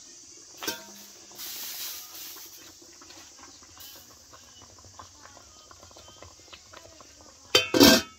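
Enamelled steel pot lid: a clink as it is lifted off about a second in, then a loud double clatter of metal on metal near the end as it is set back on the pot.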